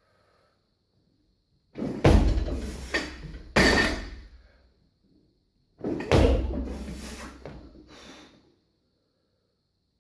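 Loaded barbell with bumper plates clanging, and heavy thuds on the lifting platform, as a weightlifter lifts it. The sound comes in two bursts, about two and six seconds in, each rattling and ringing out over a couple of seconds.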